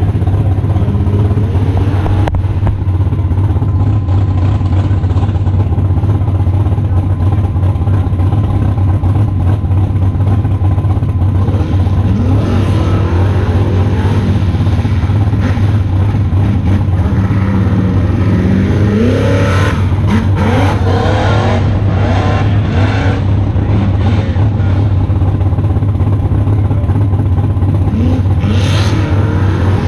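Off-road race vehicle engines revving out on the course, rising and falling in pitch as they shift and accelerate, busiest in the middle stretch. Under them runs a loud, steady low hum.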